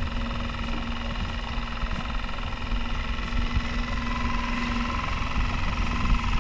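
Small Mercury 3.5 hp outboard motor running at a steady speed.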